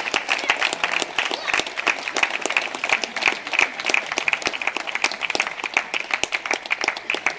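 Audience applauding: many hands clapping at an even level after a brass band piece.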